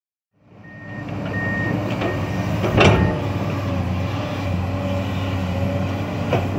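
Heavy diesel earthmoving machinery running steadily at work, with a warning alarm beeping a few times early on and one sharp metal clank about three seconds in.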